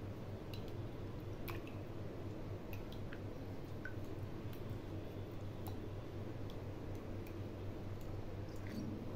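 Spoon stirring thick spiced yogurt in a glass bowl: faint wet squishing with scattered light clicks of the spoon against the glass, over a steady low hum.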